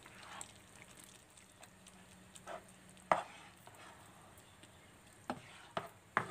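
A plastic spoon stirring a thick tomato and eggplant mixture in a nonstick frying pan, with a handful of short scrapes and knocks against the pan, the sharpest about three seconds in.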